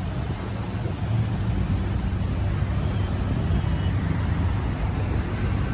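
City street traffic: motor vehicle engines running with a steady low rumble over road noise.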